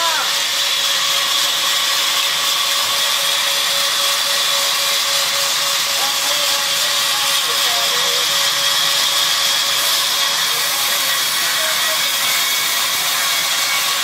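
Sawmill band saw running steadily: a continuous hiss with a steady high whine.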